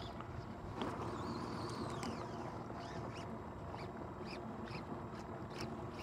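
Fly line sliding and squeaking against the rod guides and the angler's fingers. It starts with a few drawn-out squeaky glides, then from about halfway through comes a run of short, quick strips, about two to three a second. A steady low hiss of wind and water runs under it.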